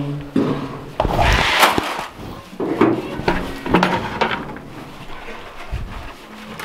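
A plastic bucket being handled: a run of knocks and clatters over the first four seconds, with a short rushing sound about a second in, then quieter rubbing.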